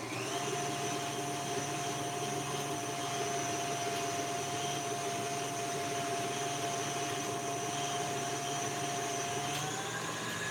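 KitchenAid Artisan stand mixer running with its whisk beating chilled coconut cream into whipped cream. Its motor gives a steady whine that rises just as it starts and steps up slightly in pitch near the end as it speeds up.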